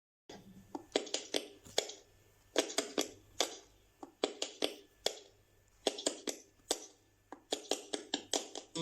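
Sharp percussive taps and clicks in quick clusters of two to four, each dying away fast, like hand claps or hand percussion opening the recording before the guitar enters.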